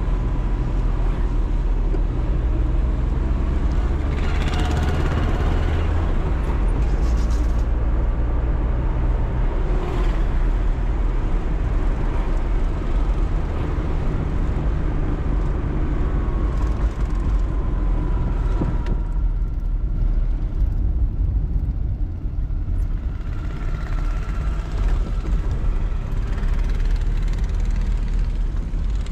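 Maruti 800's 796 cc three-cylinder petrol engine running while the car drives, with steady low road rumble and tyre noise. The higher hiss eases for a few seconds about two-thirds of the way through.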